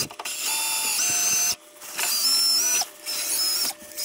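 Cordless drill driving a wire wheel against the steel upper control arm mount, scrubbing off factory undercoating. It runs in about four stretches of a second or so, stopping briefly between each.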